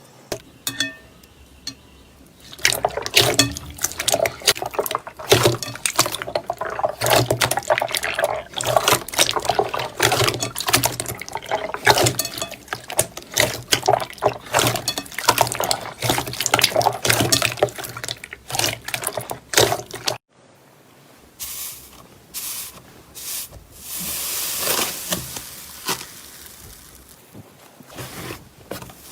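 Slime being squished and worked, making a dense run of wet clicks and squelches. About twenty seconds in it cuts off abruptly to quieter, sparser squishing.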